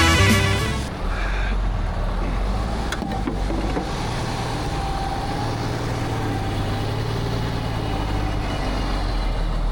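Heavy-equipment diesel engine running steadily with a low, even drone, and one short knock about three seconds in. Music fades out in the first second.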